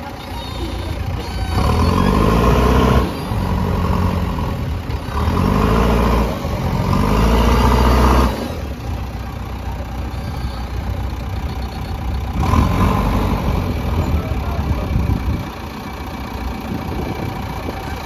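JCB 3DX backhoe loader's diesel engine revving up in about four loud surges as the machine works, then dropping back to a lower steady run, with one more brief rise about two-thirds of the way through.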